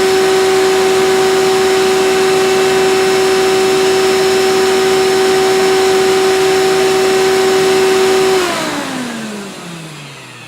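Hoover Elite upright vacuum cleaner running with a steady whine while sucking debris up through its hose; about eight seconds in it is switched off and the motor winds down, its pitch falling away.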